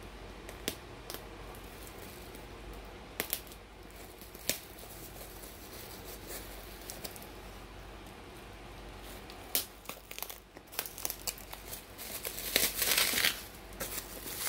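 Taped cardboard parcel being torn open by hand: a few scattered clicks and scrapes at first, then, from about ten seconds in, a busy stretch of tearing tape and cardboard and crinkling plastic wrapping.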